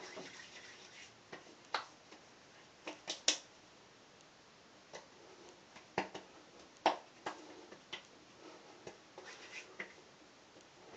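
Fingertips patting moisturiser onto freshly shaved, raw-feeling skin of the face and neck: irregular light, sharp pats, a dozen or so, the sharpest about three and seven seconds in.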